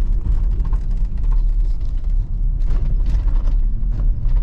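Nissan Y62 Patrol driving, heard from inside the cabin: a steady low rumble of engine and road noise with small clicks and creaks over it.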